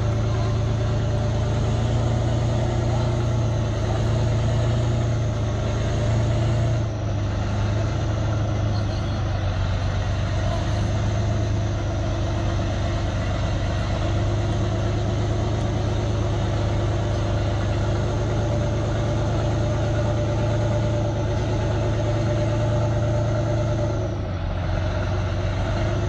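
Heavy tracked vehicle's engine running steadily with a constant low hum, holding the same pitch throughout without revving.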